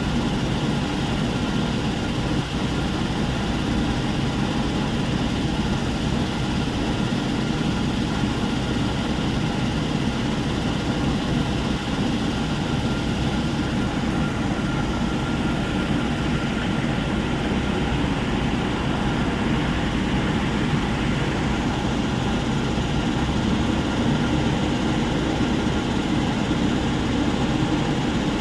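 Heavy machinery at a stone crusher plant running steadily, a continuous low engine drone under a dense mechanical rumble.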